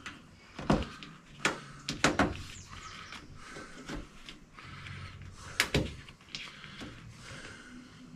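A trim piece being snapped into its plastic push-in clips by hand. There are a series of sharp knocks and clicks, with the loudest pair near the middle.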